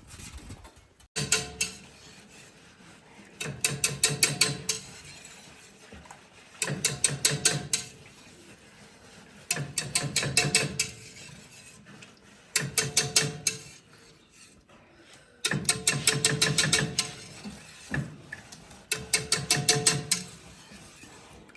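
A utensil beating rapidly against a metal bowl in about seven short bursts of quick, ringing strokes with brief pauses between them. This is whisking flour into water to make a lump-free paste for thickening porridge.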